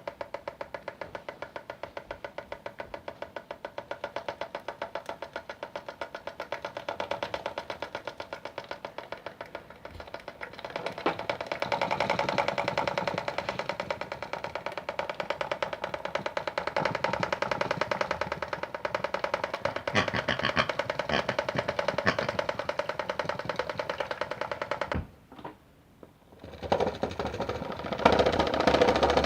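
Background music with a fast, even beat, cutting out for about a second near the end before coming back louder.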